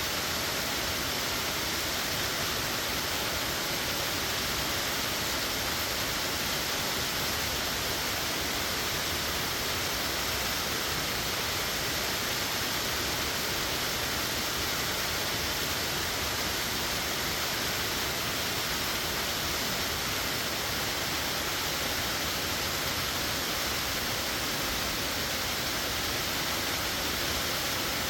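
Plunge waterfall of about 75 feet falling into a narrow rock canyon: a steady, even rush of crashing water, more hiss than rumble.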